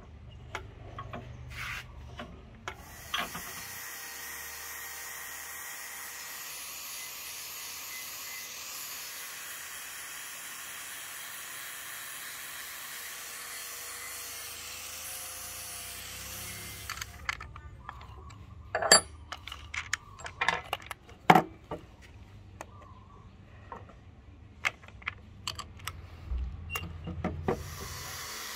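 Electric angle grinder with an abrasive disc running steadily against a rusted steel double-bit axe head, grinding off the rust. After about fourteen seconds the grinder stops and a string of sharp clicks and knocks follows. The grinder starts up again near the end.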